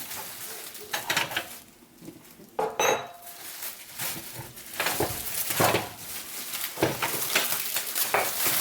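Steel machine gun parts from a demilled parts kit clinking and clanking as they are handled and set down, in irregular knocks, one of them ringing briefly a little under three seconds in.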